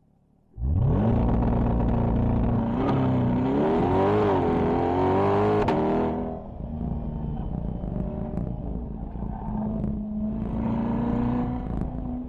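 C8 Corvette's V8 coming in suddenly at full throttle about half a second in, its pitch climbing fast, then held high and wavering as the car is driven hard through the course. About six seconds in it drops to a lower, steadier part-throttle run, and picks up again near the end.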